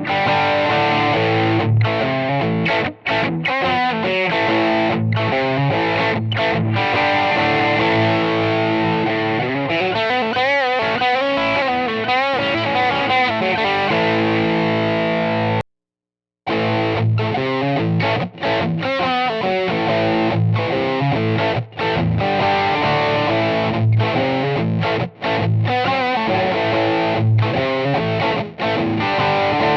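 Electric guitar played through an Eternity Love clone overdrive pedal with a TLC2227CP op amp in its socket, including bent and vibrato notes. It cuts out for under a second about halfway. Then the guitar resumes through the same pedal, now fitted with a TLC27L2C op amp.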